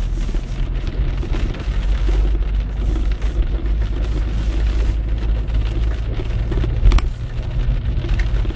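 Steady low rumble of a car driving on a wet road in the rain, heard from inside the cabin: engine and tyre noise with a hiss of spray, and a single sharp knock about seven seconds in.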